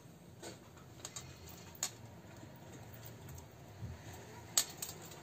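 A few light clicks and taps from hands handling fabric and a wooden slice on a cutting mat, scattered over a faint background.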